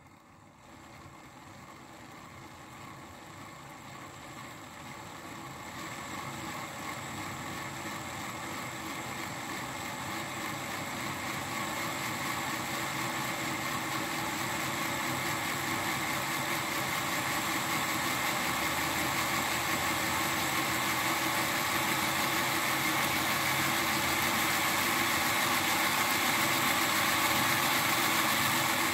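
Märklin BR 247 Vectron H0 model locomotive running on a rolling-road test stand, its motor and rollers making a steady whirring hum that grows gradually louder as it steps up through its speed steps during speed calibration.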